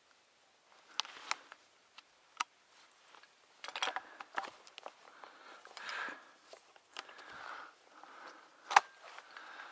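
Handling noise: soft rustling of clothing and dry reeds with scattered sharp clicks as the hunter shifts and swings his shotgun, the loudest click near the end.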